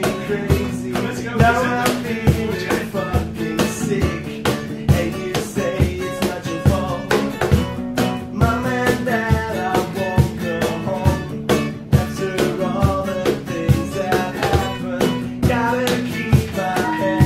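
Live acoustic band: strummed acoustic guitars over a steady beat slapped on a cajón.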